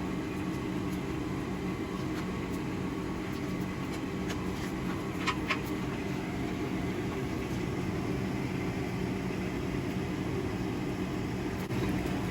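Coal forge blower running with a steady drone, with a few light metallic clicks, the clearest two about five seconds in.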